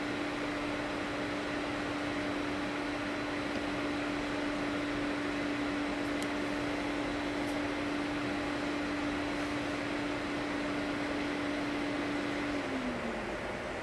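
Steady mechanical hum over an even hiss; its tone glides down in pitch near the end, as if a motor were slowing.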